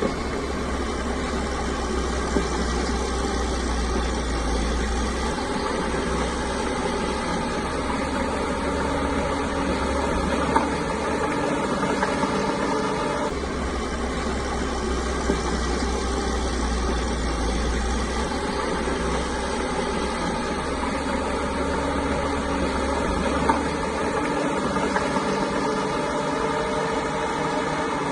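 Caterpillar bulldozer's diesel engine running steadily, its deep rumble rising and falling a few times, with a few faint knocks.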